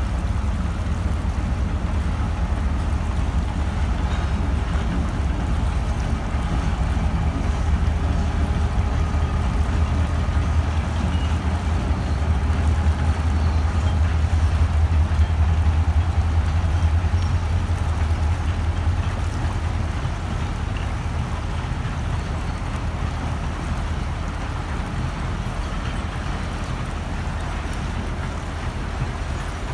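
Low, steady rumble of a passenger train's diesel locomotive passing along the far bank, swelling to its loudest about halfway through and then slowly fading. The rushing of river rapids runs underneath.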